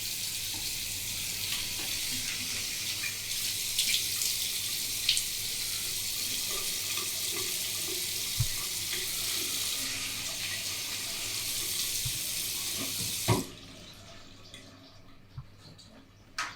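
Steady running water that stops abruptly with a knock about 13 seconds in, leaving quieter room sound.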